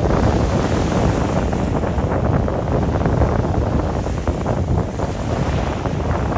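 Wind buffeting the microphone: a steady, deep rumbling noise with no distinct events.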